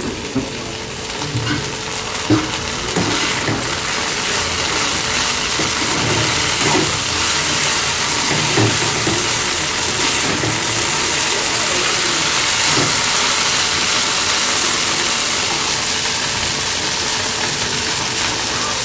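Chopped okra sizzling as it fries in oil in an open pan, a steady hiss. A spatula stirring through it knocks and scrapes against the pan now and then, more in the first half.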